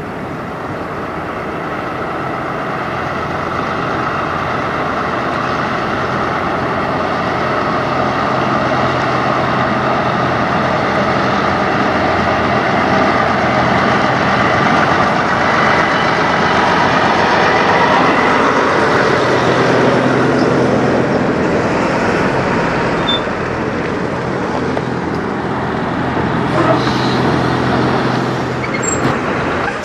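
Volvo VNL860 semi tractor pulling a refrigerated trailer, its diesel engine running at low speed as it drives past, growing louder as it comes close and peaking about halfway through.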